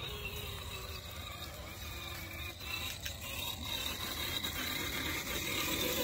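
Footsteps crunching on dry, stony dirt and twigs, with wind noise on the microphone.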